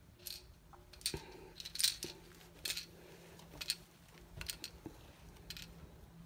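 Small hard plastic toy being fiddled with in the hands: about a dozen short, sharp, irregular clicks and rattles.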